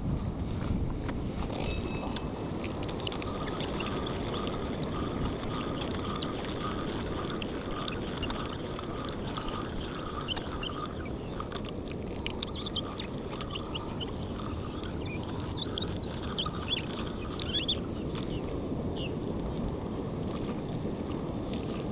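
Steady wind noise on the microphone over the surf below the pier. Faint rapid ticks and a rhythmic squeak come from a spinning fishing reel being cranked as a fish is reeled in.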